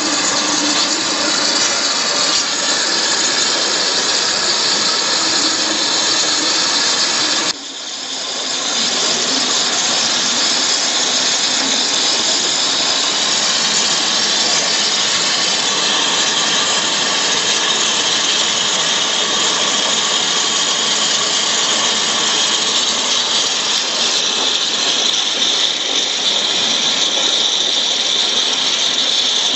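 Abrasive waterjet cutting through 80 mm thick glass: a loud, steady hiss from the high-pressure jet. The hiss dips sharply about seven and a half seconds in, then builds back up.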